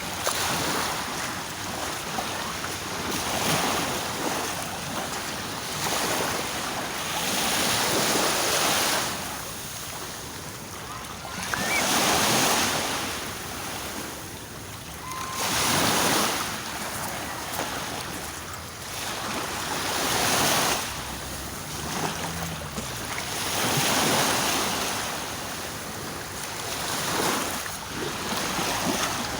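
Sea waves washing in, each surge swelling and falling back about every four seconds.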